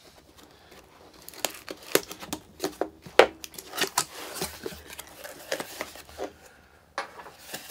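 Cardboard box being opened: a utility knife slitting the packing tape, then the flaps being pulled open and the plastic-wrapped contents handled, giving a run of short scrapes, rips, crinkles and clicks.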